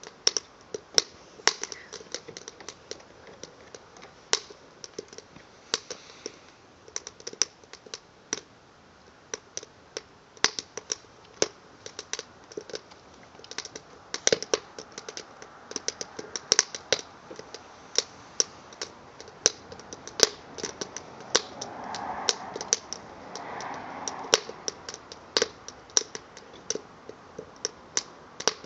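Burning cedar log crackling, with sharp pops coming at irregular intervals over a soft steady hiss. A brief, louder swell of broader noise comes about three-quarters of the way through.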